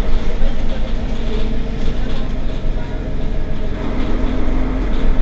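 Mercedes-Benz Citaro facelift city bus under way: a steady engine and running rumble with a few light clicks.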